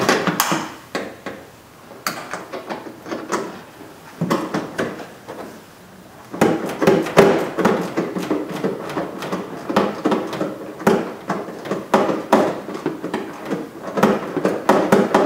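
Clicks and knocks of hand work on a car's front bumper cover and fender as they are fitted back into place. The clicks are scattered at first, then come in a dense, quick run from about six seconds in.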